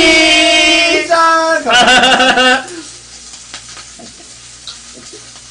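Men shouting a long, drawn-out toast cheer together, the held call breaking off about two and a half seconds in. After that, quieter sizzling and small crackles of pork belly on a tabletop grill.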